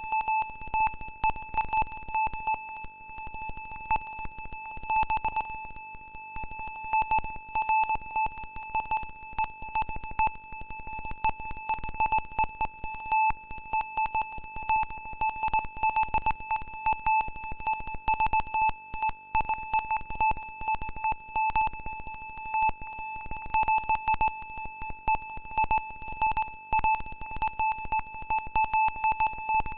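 ZX Spectrum intro sound: a steady, high-pitched, buzzy square-wave tone that pulses in strength, over a dense, irregular stream of sharp clicks and crackles.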